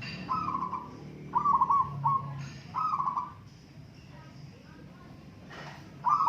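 Zebra doves cooing: several short phrases of quick, rolling coos in the first three seconds, then a pause, and another phrase near the end.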